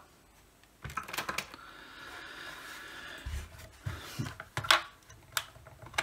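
Milwaukee M12 radio's plastic housing being handled and turned over on a silicone work mat: scattered clicks and knocks, a cluster about a second in and several more in the last two seconds.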